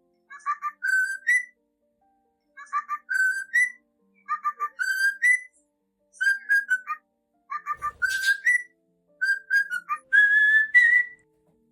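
Cockatiel whistling a learned tune over and over: the same short phrase of quick chirped notes ending in a rising note, about every second and a half, with a harsher scratchy note mixed in twice near the end.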